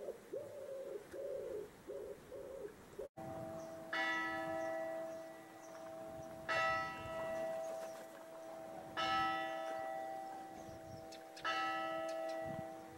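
A pigeon cooing in a repeated phrase of short notes. After a brief dropout, a church bell strikes four times, about two and a half seconds apart, each stroke ringing on into the next.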